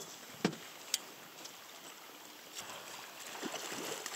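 Hooked coho salmon splashing and thrashing at the surface beside an inflatable raft, the splashing building from a little past halfway. Two sharp knocks come in the first second.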